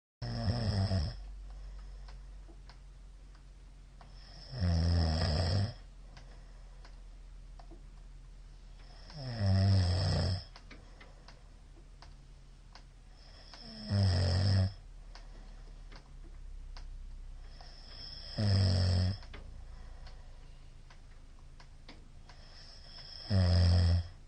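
A man snoring very loudly: six rattling snores on the in-breath, each lasting about a second, coming regularly about every four and a half seconds.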